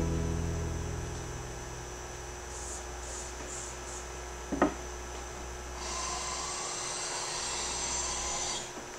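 Brese 912-50S smoothing plane taking a long shaving along a wooden board: a steady hiss of the iron cutting wood for about two and a half seconds near the end. A sharp knock comes about halfway through, and a guitar song fades out at the start.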